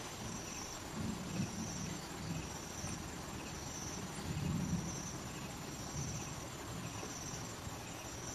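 An insect calling in short high buzzes, repeating about once a second, with low rustling and bumping from movement in the vegetation around one second and four and a half seconds in.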